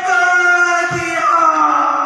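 A voice holding long, high drawn-out notes, gliding slightly lower in the second half, with a dull thump about a second in.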